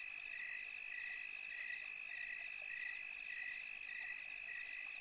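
Night-time chorus of calling insects and frogs: a steady high trill with a second high call pulsing about two and a half times a second.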